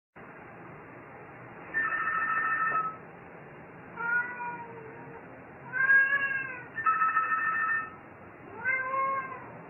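A telephone rings twice with a steady electronic trill about a second long each time. A domestic cat meows three times around the rings, each meow rising and then falling in pitch, as if answering the phone.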